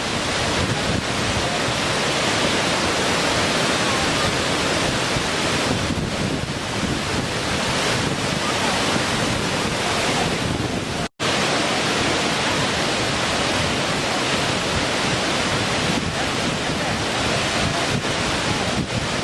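Small waterfall: water falling and splashing in a steady, even rush. A split-second gap to silence about halfway through.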